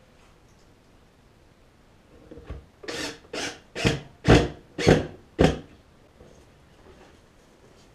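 Hand-sanding a plywood drawer edge: six short back-and-forth rasping strokes, about two a second, loudest in the middle of the run.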